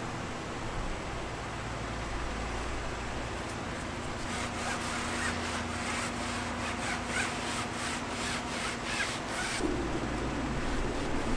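Hand-held detailing pad or brush rubbed back and forth on a surface in quick strokes, about three a second, starting about four seconds in and stopping shortly before the end, over a steady low background hum.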